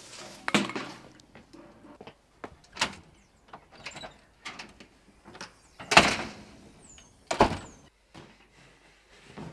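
A security screen door and front door being opened and shut: a string of clicks, rattles and knocks, with two loud bangs about six and seven and a half seconds in, the first the loudest.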